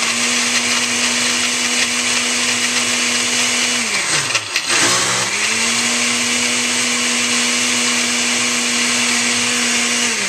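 Countertop blender with a glass jar running on a shake setting, blending milk, ice cubes and protein powder. The motor runs at a steady pitch, winds down and stops about four seconds in, starts again a moment later, and winds down once more near the end.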